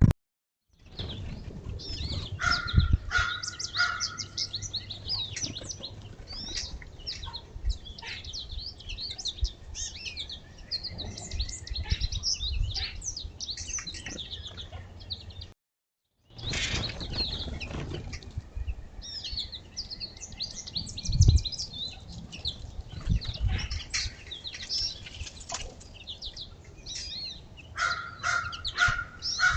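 Many small feeder songbirds chirping and calling over one another in a dense, continuous chorus of short high notes. The sound cuts out completely twice for under a second.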